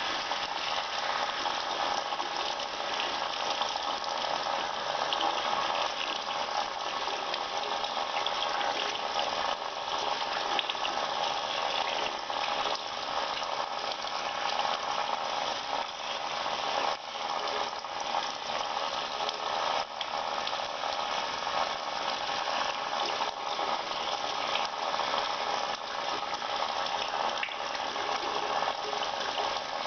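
Tap water running steadily over hands being washed at a sink.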